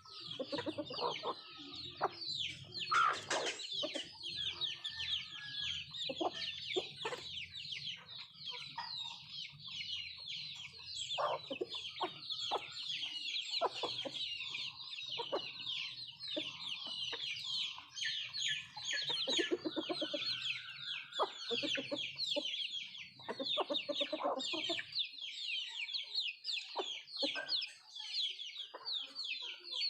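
Country chickens (nattu kozhi) clucking on and off over a constant chatter of rapid high-pitched cheeping.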